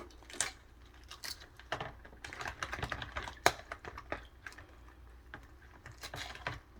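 Shell of a microwave-boiled egg being cracked and peeled by hand: irregular small clicks and crackles, with one sharper crack about three and a half seconds in.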